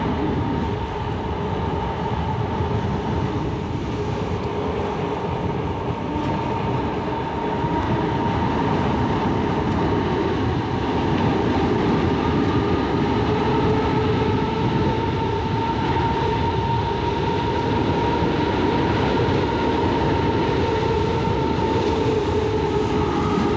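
Wind rushing over a GoPro's microphone and tyre noise from a bicycle rolling on the road, with a steady hum under the rush. It grows a little louder about ten seconds in.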